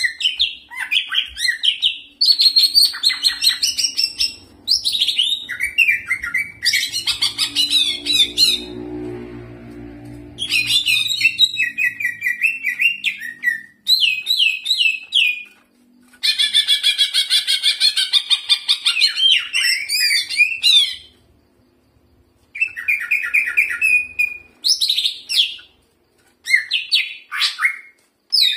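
Recorded calls of small songbirds played as a bird-trapping lure: rapid chirps and trills in repeated phrases of a few seconds, separated by short pauses. About eight to eleven seconds in there is a softer, lower-pitched stretch.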